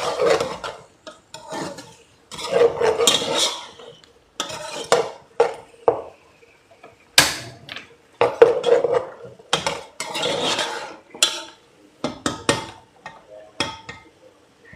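A spoon stirring in a cooking pot, scraping and knocking against its sides in irregular strokes, with several sharp clinks.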